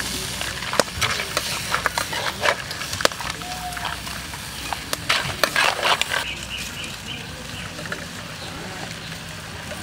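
Metal spatulas scraping and clinking against a steel wok as crab and vegetables are stir-fried. The scraping is busy for about six seconds, then stops.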